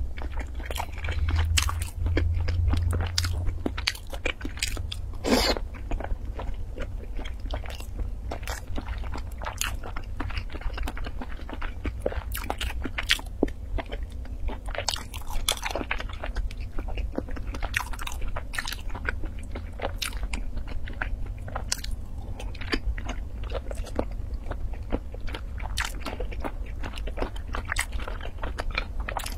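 A person biting and chewing century eggs (preserved duck eggs) close to a lapel microphone, with many short sharp mouth clicks and smacks.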